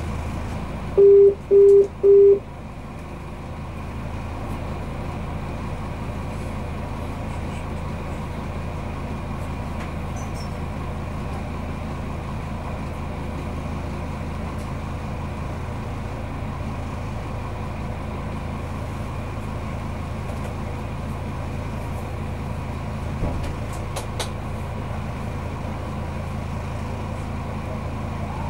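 Three short, loud beeps of a warning tone in a diesel railcar's driver's cab about a second in, followed by the steady low hum of the railcar's engine running.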